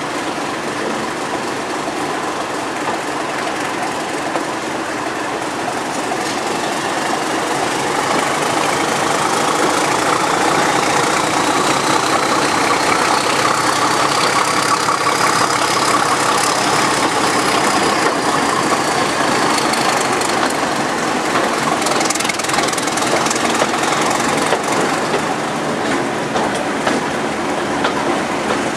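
Class 31 diesel-electric locomotive's English Electric V12 engine working hard, heard from the coach coupled behind it, along with the rumble of the train running on the rails. A high whine rises in pitch and then falls away again, and the engine grows louder about a third of the way in.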